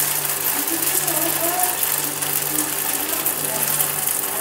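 A steady low mechanical hum with a constant hiss above it, holding even throughout.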